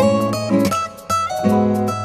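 Background music of plucked-string notes, guitar-like, in a quick rhythm.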